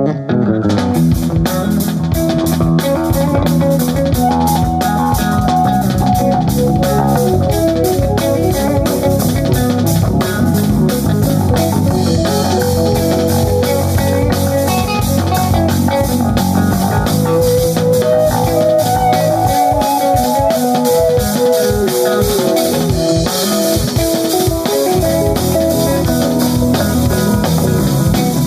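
A rock band playing an instrumental passage: guitar over bass and a drum kit keeping a steady beat.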